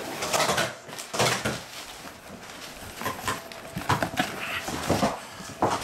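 Cardboard shipping-box flaps handled and brown kraft packing paper rustling and crinkling as it is pushed aside and pulled out, in irregular bursts with a few sharper crackles.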